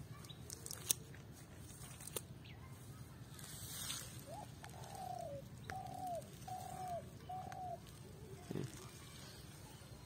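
A dove cooing: a run of about four short, arching coos in the middle. A few faint clicks sound early on.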